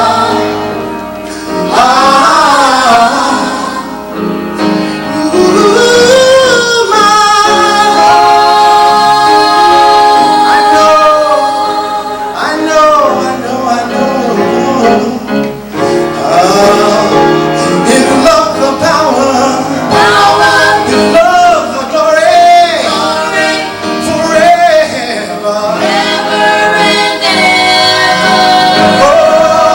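Gospel group singing live, male and female voices, with long held notes and sliding vocal runs that carry no clear words.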